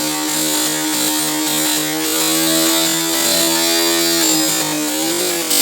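Electric motors of a homemade twin-motor RC helicopter running, a steady buzzing whine with overtones and a hiss. The pitch wavers and rises slightly near the end.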